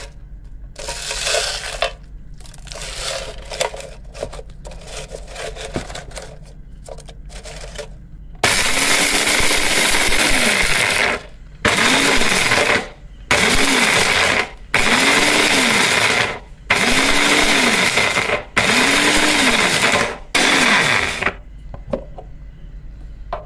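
Countertop blender grinding roasted whole garam masala spices to powder: one longer run, then about six short pulses, the motor speeding up and winding down each time. Before that, dry spices and bay leaves rustle and clatter as they are loaded into the plastic jar.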